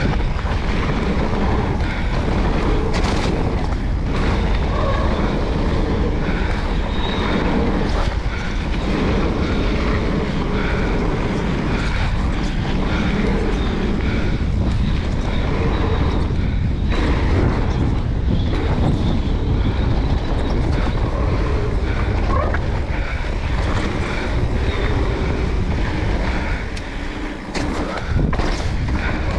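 Riding noise from an electric mountain bike on a gravel forest track: wind buffeting the action camera's microphone over tyres rolling on gravel, with scattered knocks and rattles from the bike. The noise dips briefly near the end.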